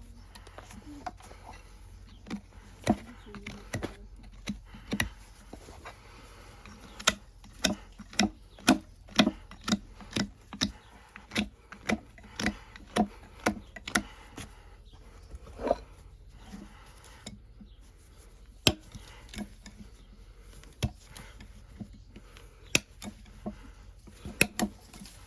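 Farrier's hand tools working a horse's hoof: a series of sharp, irregular clicks and knocks, coming about two a second in the busiest stretch, over a low steady hum.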